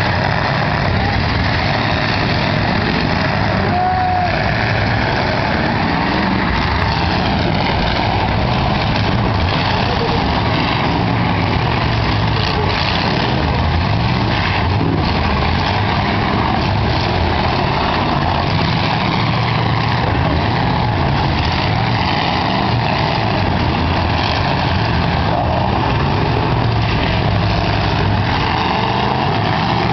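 Several eight-cylinder demolition-derby cars running and revving together, loud and steady, with a few knocks scattered through.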